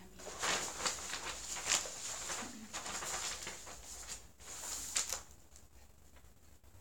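Paper pages of a music folder rustling as it is opened and handled, in irregular bursts that stop about five seconds in.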